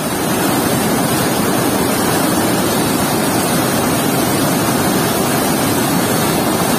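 Water rushing steadily out from under a dam's sluice gate and churning into white water below.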